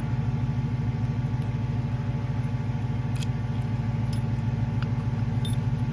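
An engine idling steadily, a low, even, pulsing hum, with a few faint clicks about three seconds in and near the end.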